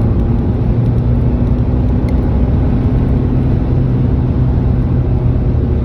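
Car driving at a steady speed, heard from inside the cabin: a steady low engine drone with road and tyre noise.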